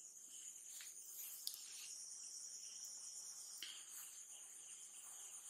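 Near silence: faint room tone with a steady high-pitched hiss and a few soft clicks.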